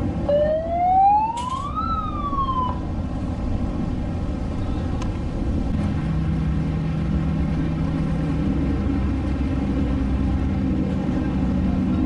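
A siren sounds once, its pitch rising for about a second and a half, then falling briefly before cutting off. Under it runs a steady low rumble of motorboat engines and wind on the water, with a steady engine hum joining about halfway through as a boat passes.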